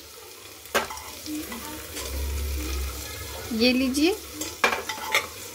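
A metal spoon scraping and clinking inside a pressure cooker as sautéed vegetables are scooped out onto a steel plate. There are a few sharp clinks and two squeaky scrapes, over a faint sizzle from the hot pan.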